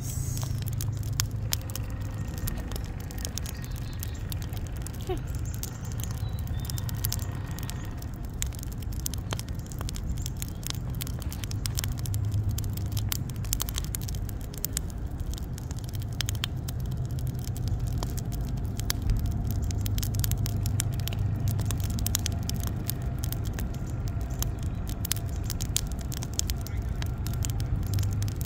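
Wood fire in an outdoor fire pit crackling, with irregular snaps and pops throughout, over a steady low rumble.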